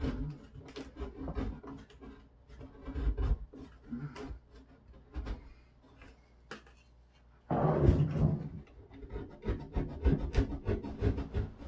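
Irregular scraping and rubbing with light knocks from hand tools working drywall, denser and louder from a little past halfway.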